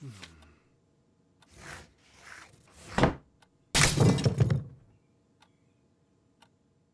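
Paper rustling and flapping as book pages are turned, in a few short bursts with the loudest and longest about four seconds in, followed by a couple of faint ticks.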